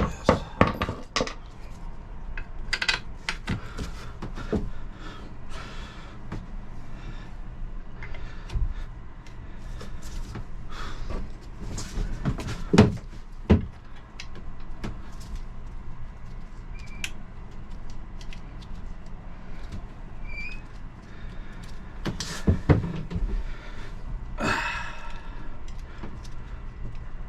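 Scattered metallic clunks, knocks and clicks from handling the alternator and its mounting hardware while fitting it back onto the engine bracket, with a short scraping rasp near the end.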